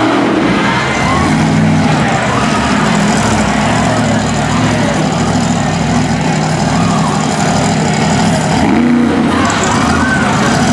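Monster truck engine running loud and steady.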